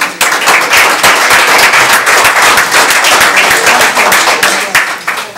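A roomful of people applauding: dense clapping that starts abruptly and tapers off after about five seconds.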